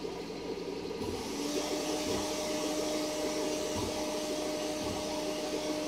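FLSun S1 Pro 3D printer running a print at high speed, about 500 mm/s in ludicrous mode: a steady whir of cooling fans with the stepper motors' whine, one tone of which sets in about a second and a half in.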